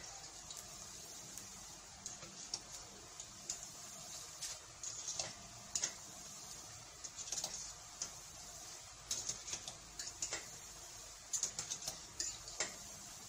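A metal slotted spoon clicking and scraping irregularly against a steel pot while stirring peanut burger deep-frying in oil, over a steady hiss of sizzling oil.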